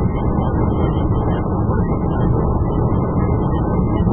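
Steady road and engine noise inside a 2017 Chrysler 200's cabin while it cruises on the highway, a low, even rumble.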